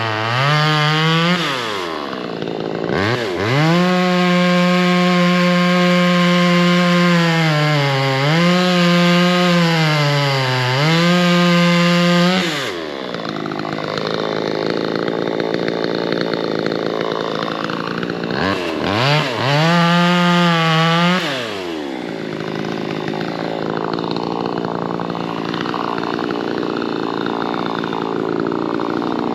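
VEVOR 58cc two-stroke gas chainsaw revved to full throttle and held there, its pitch dipping briefly twice. It drops back to idle, is revved up once more for a couple of seconds, and returns to idle.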